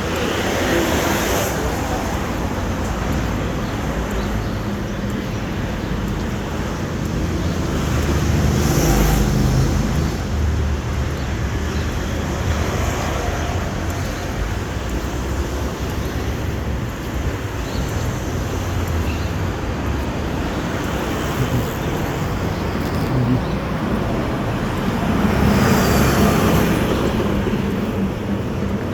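Steady road traffic noise with a low rumble. It swells three times, about a second in, around nine seconds and around twenty-six seconds, as vehicles pass.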